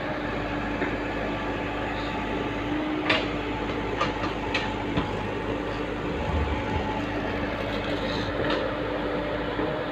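Hyundai crawler excavator's diesel engine running steadily under work, with a handful of sharp clanks from the machine, the loudest about three seconds in.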